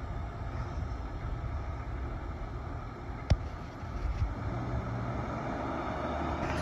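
Lifted Jeep Cherokee XJ's engine running steadily as it creeps along at low speed, with one sharp knock a little past three seconds in.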